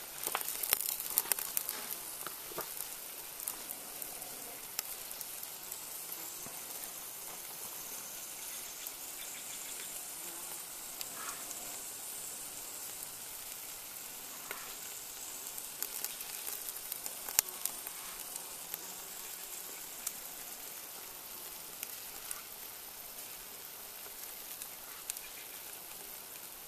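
Beef ribs sizzling on a grill over charcoal briquettes in a cast-iron camp oven as barbecue sauce is brushed on: a steady hiss with scattered crackles and pops.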